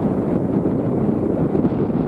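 Ryanair Boeing 737-800 jet engines at takeoff thrust as the aircraft lifts off, a steady loud rumble mixed with wind buffeting the microphone.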